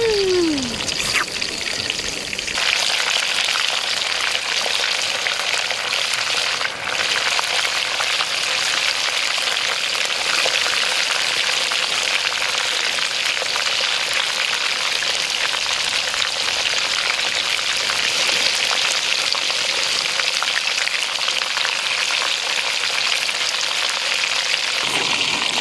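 Whole chicken frying in hot oil in a wok, a steady sizzle with the oil bubbling around it. A brief falling voice sounds at the very start.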